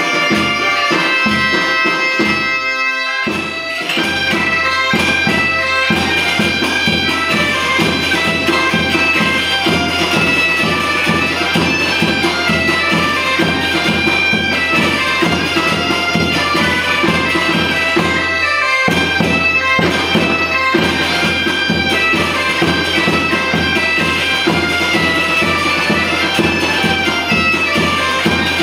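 Bagpipe music: a melody played over a steady low drone, with short breaks about three seconds in and again about two-thirds through.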